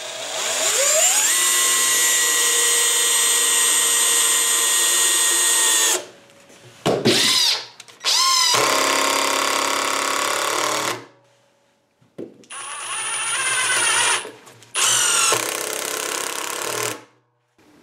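Cordless power tools driving 3-inch deck screws into a pressure-treated 4x4 post, one after another. First a drill's motor whine rises and then holds steady for about six seconds. Then comes an impact driver's run of about three seconds, and near the end a compact impact wrench fitted with a 1/2-inch square drive to 1/4-inch hex impact adapter drives the third screw in.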